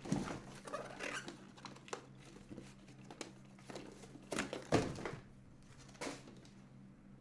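Packaging being opened by hand: paper or plastic crinkling and tearing in irregular bursts, loudest about four and a half seconds in, with a last rustle near six seconds.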